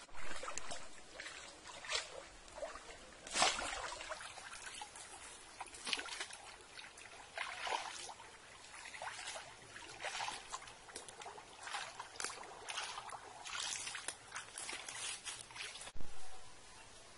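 Water splashing and sloshing in irregular bursts as people wade and move through a shallow muddy stream. There is a short loud burst near the end.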